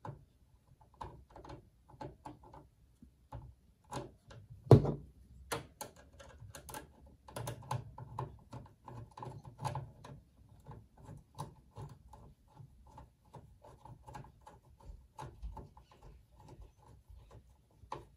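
Screwdriver turning a screw into the metal chassis of a Power Mac G4 Quicksilver tower, with many small irregular clicks and scrapes of the screw and the case. One much louder knock comes about five seconds in.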